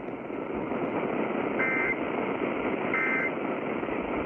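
Emergency Alert System end-of-message data bursts: short, buzzy two-tone digital chirps repeating about every second and a third, two of them whole and a third starting at the very end. Under them runs the steady hiss of AM radio reception.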